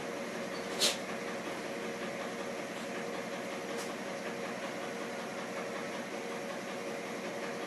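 Steady mechanical hum with a constant tone, like a fan or appliance running, with one short sharp sound about a second in and a faint click near the middle.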